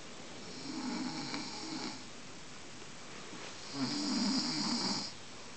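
A drunk man snoring in deep sleep: two rough, rasping snores, each about a second and a half long and about three seconds apart, the second one louder.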